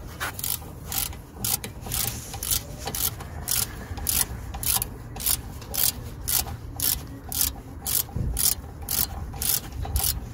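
Ratchet wrench clicking in short even strokes, about two a second, as it tightens the top guide-pin bolt of a brake caliper.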